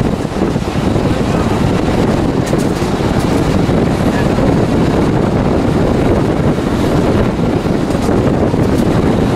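Wind buffeting the microphone at an open carriage window over the steady running rumble of a narrow-gauge train's carriages on the track, with a few faint clicks.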